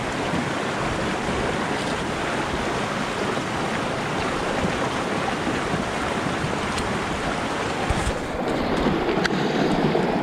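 Mountain creek rushing steadily over rocks, a little louder near the end, with a few faint clicks in the last few seconds.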